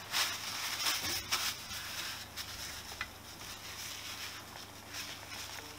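Light rustling and a few soft clicks and knocks as a freshly painted metal moped centre stand is handled and shifted on a paper-covered bench.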